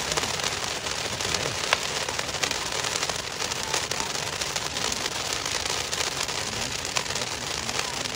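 Ground fountain firework spraying sparks: a steady, dense crackle of many small pops.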